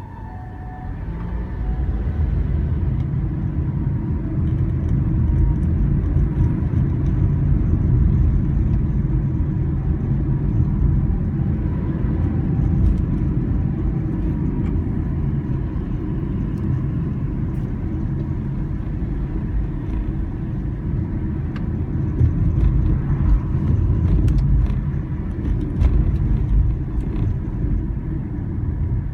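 Road traffic: a steady low rumble of cars going by, swelling a little louder in the later part. The siren heard just before is no longer plainly there.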